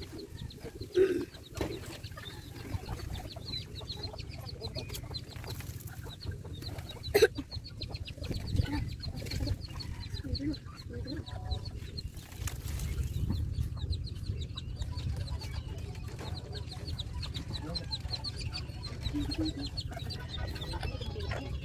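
Rural yard ambience: chickens clucking, a fast high chirping trill repeating again and again, and a steady low rumble, with two sharp knocks about one second and about seven seconds in.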